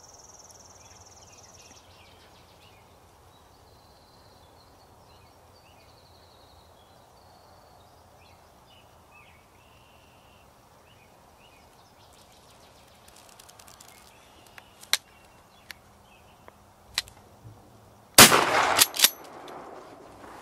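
Turkey-hunting shotgun fired once, a loud sudden blast near the end, with more sharp noises in the second after it. Before the shot, songbirds call faintly over a quiet field.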